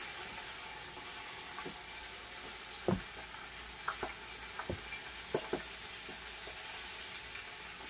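Chicken livers deep-frying in hot oil: a steady sizzle with a few scattered pops, the loudest about three seconds in. The livers have holes punched in them, and they are popping, but not as much.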